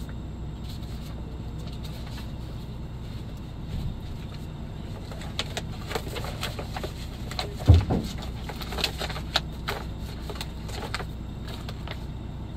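Things being handled inside a truck cab: a scatter of clicks, knocks and rustles, with one louder thump about eight seconds in, over a steady low hum.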